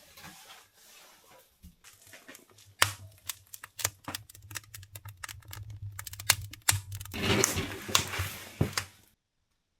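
A wood fire of old salvaged lumber crackling with many irregular sharp pops. A rushing noise swells near the end before the sound cuts off abruptly.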